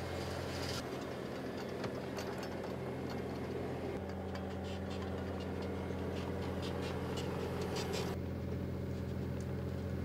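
Bobcat compact track loader's diesel engine running steadily as the machine drives, with light clicks and rattles over it.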